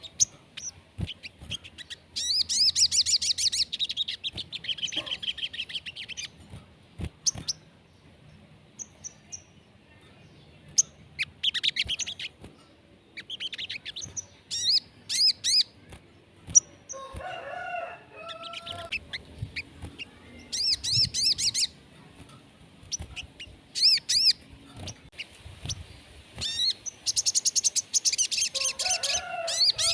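Sunbird song: bursts of high, rapid trilled phrases repeated over and over. A lower-pitched call comes in about two-thirds of the way through and again near the end.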